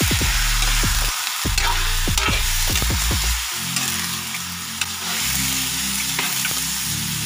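Chunks of pork sizzling and frying in a wok, stirred with a metal spatula that ticks and scrapes against the pan now and then. The meat is being seared to draw out its juices before the broth goes in.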